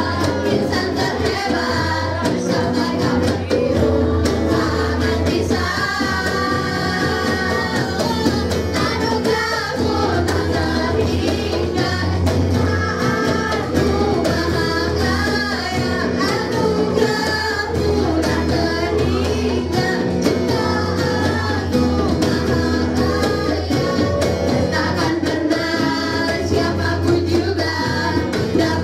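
A group of teenage girls singing together into microphones, accompanied by electric and acoustic guitars and a cajón.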